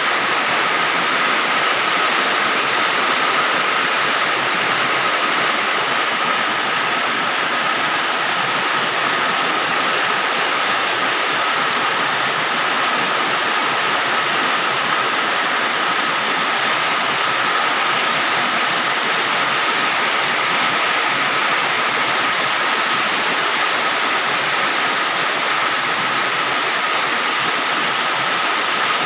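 Rain falling on a galvalume sheet-metal roof: a steady, dense patter of drops that does not let up, with a faint steady tone running through it.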